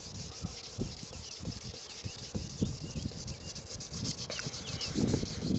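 Wet sandpaper rubbing in short, quick back-and-forth strokes over a car's painted side-mirror housing, sanding down peeling clear coat.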